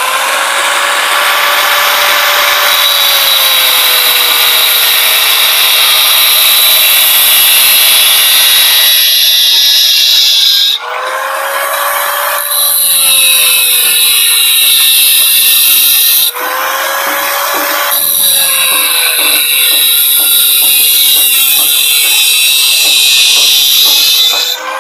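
Angle grinder with a cutting disc cutting through a metal push-bike handlebar tube, its motor whine sagging and recovering in pitch as the disc bites into the metal over a loud grinding hiss. The sound dips briefly twice, about eleven and sixteen seconds in, then carries on.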